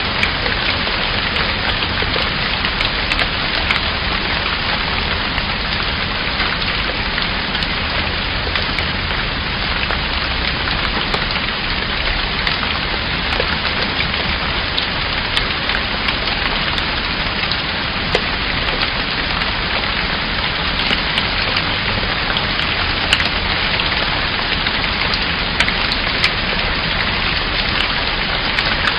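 Steady rain falling, a constant hiss with scattered sharper drop ticks.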